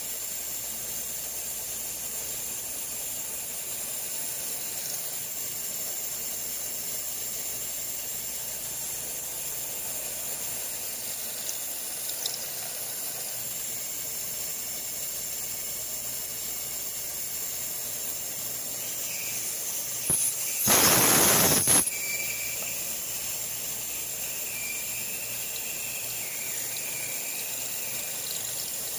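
Milling machine running with liquid coolant spraying onto the end mill and workpiece: a steady hiss, broken about two-thirds of the way in by a loud rush of noise lasting a second or so. A faint high whine comes in over the last third.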